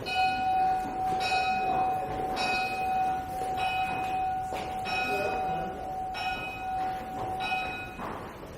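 A bell-like ringing, one stroke about every 1.2 seconds over a steady high tone, stopping shortly before the end.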